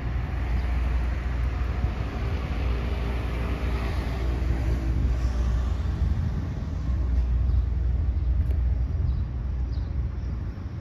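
A motor vehicle passing: its engine and tyre noise swell to a peak about four to five seconds in, then fade. Underneath is a steady low rumble of wind on the phone's microphone.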